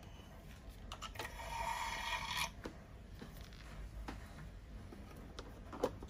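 Faint handling sounds of a sewing machine being threaded: a few small clicks and a brief scrape about a second in.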